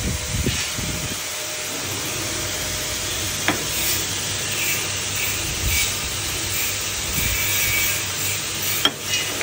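Wave Roaster double-walled drum coffee roaster running mid-roast with a 7 kg batch in the browning stage: a steady rushing hiss of beans tumbling in the turning drum. A sharp metal click comes about three and a half seconds in and a louder one near the end, as the sample trier is pulled and handled.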